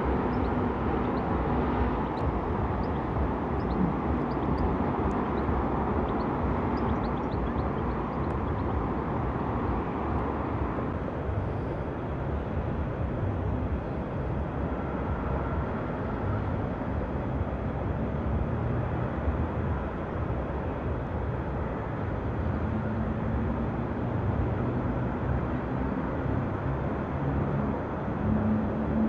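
Distant city traffic: a steady low rumble and hiss, with a faint engine hum coming in over the last few seconds.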